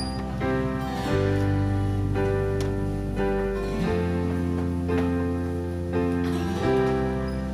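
Background music: plucked guitar chords over held bass notes, the bass changing about every three seconds.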